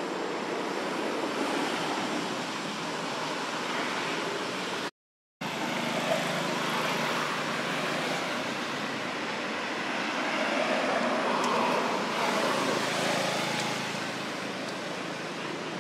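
Steady outdoor background noise, an even rush with no distinct events. It cuts out to silence for about half a second around five seconds in.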